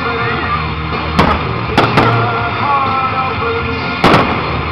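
Fireworks shells bursting with sharp bangs: one about a second in, two close together near two seconds, and another near the end. Loud music with a melody plays throughout.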